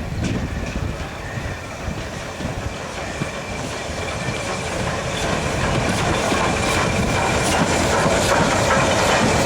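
A train running closer and growing louder, its wheels clicking over the rail joints, with a thin steady high tone joining in about halfway through.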